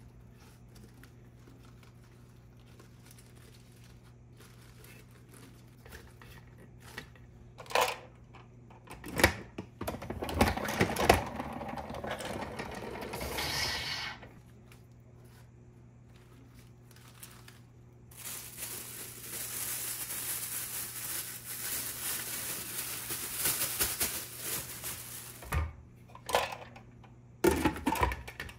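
Pump-action salad spinner spinning washed lettuce dry: a steady mechanical whirring for about seven seconds in the second half, with clicks and knocks as the lid and basket are handled before and after.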